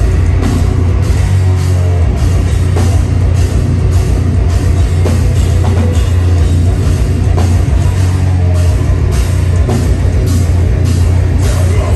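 Deathcore band playing live at full volume: heavy drums with pounding low end and distorted electric guitars in a steady, driving rhythm.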